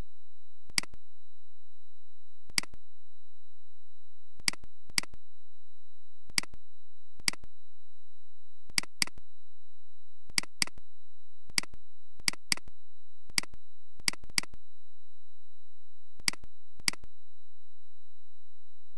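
Computer mouse clicking at irregular intervals, about eighteen sharp clicks, several of them quick double-clicks. A faint steady high-pitched whine runs underneath.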